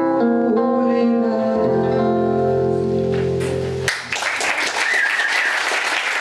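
A woman singing with nylon-string classical guitar, the song closing on a long held note that cuts off just under four seconds in. The audience then breaks into applause, with a few voices calling out.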